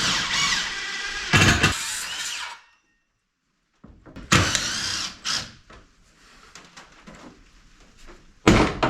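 Power drill running in short bursts, its motor pitch rising and falling as it spins up and slows down.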